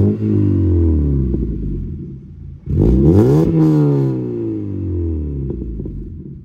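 Mazda MX-5 NC's 2.0-litre four-cylinder free-revved while parked, through an aftermarket half-line exhaust with its electrically controlled bypass valve shut so the gas goes through the silencer. The revs fall away from one blip, rise again in a second blip about three seconds in, then drop back to idle near the end.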